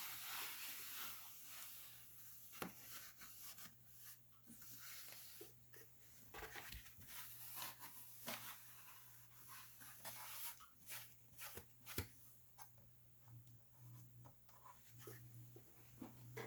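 Faint steady low hum with light hiss, broken by scattered small clicks and rustles; the sharpest click comes about twelve seconds in.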